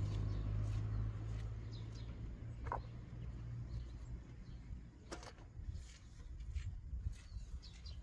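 Quiet outdoor ambience. A low engine hum fades away over the first couple of seconds, a single short bird chirp comes about a third of the way in, and a soft knock follows about five seconds in.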